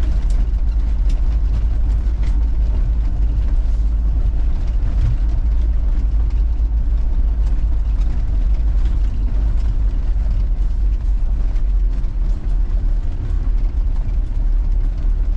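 Troller 4x4 climbing over a rocky stone road: steady low engine and road rumble, with scattered knocks and rattles.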